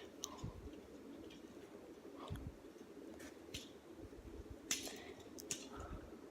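Handcuffs being picked open: faint, irregular small clicks and metallic ticks from the lock, with a few soft handling bumps.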